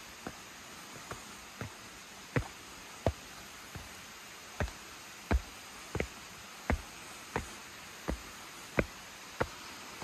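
Footsteps of a person walking on a stone-and-log stepped forest trail: sharp, evenly paced steps, about one and a half a second, over a steady low hiss.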